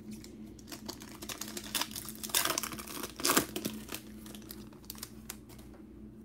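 Plastic wrapper of a trading card pack being torn open and crinkled by hand: a few seconds of dense crackling, loudest in two bursts about two and a half and a little over three seconds in, then a few light ticks.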